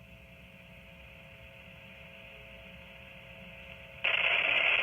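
NOAA Weather Radio broadcast on dead air: faint hiss with a low, steady hum. About four seconds in, a loud rush of radio static suddenly cuts in.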